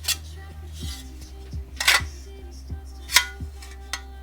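Background music with a steady beat, with three sharp clicks of small parts being handled.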